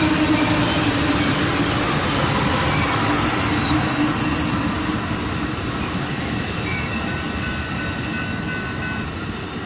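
Amtrak Superliner bi-level passenger cars rolling past, a steady rush of wheels on rail with a few faint steady tones, fading gradually as the end of the train goes by.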